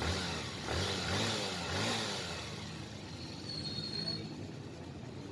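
Honda CB125 motorcycle engine running, its revs rising and falling a few times in the first half, then settling to a steady idle. The timing chain runs quietly with the new cam chain tensioner arm and roller, which the owner finds quiet.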